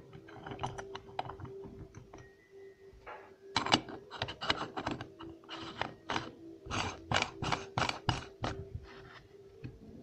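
Metal parts of a Vestel meat grinder's head being fitted by hand: the perforated steel cutting plate clinks into the aluminium head, then the ring nut is screwed on. This gives scattered metallic clicks at first, then a quick run of clicks and scrapes from about a third of the way in until near the end, over a faint steady hum.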